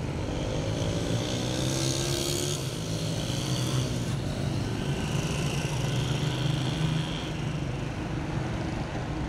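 Street traffic: motorcycles and cars driving past with their engines running, one engine's pitch rising over the first few seconds.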